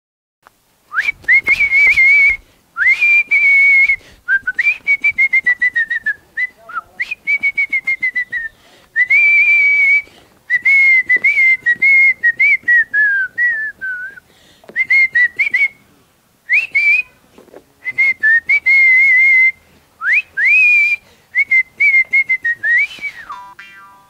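A person whistling a wandering tune in phrases of one to two seconds with short breaks between them. Many phrases start with an upward slide into a held note and drift down at the end.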